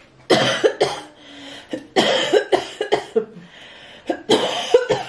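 A woman coughing loudly in three fits, each of several quick coughs, about two seconds apart.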